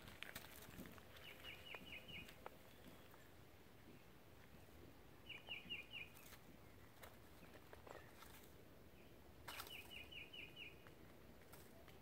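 A bird calling: three short runs of four or five quick, high notes, each lasting about a second and spaced a few seconds apart.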